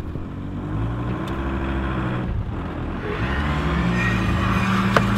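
Engine revved hard twice, its pitch climbing and then holding high, heard from inside the van's cabin: the engines straining under load as the stuck van is towed out of the mud.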